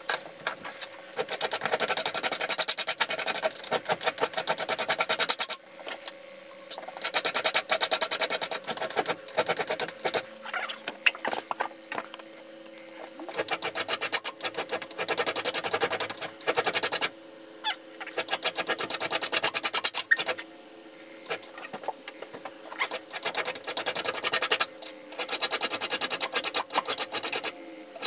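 A flat hand file rasping along the steel blade of a knife made from a lawnmower blade, held in a bench vise, to sharpen it. The sound comes in about six bouts of quick back-and-forth strokes, each a few seconds long, with short pauses between them.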